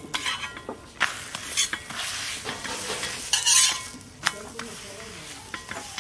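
A paratha sizzling in oil on a hot iron tawa, in surges, as a steel spatula scrapes across the pan, slides under it and flips it.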